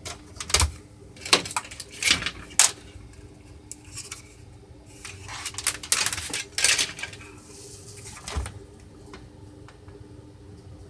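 Kodak 4600 Carousel slide projector running with a steady buzzing hum, the fault the owner points to. Sharp mechanical clicks and clatters come in groups over it, several in the first few seconds and more a little past the middle.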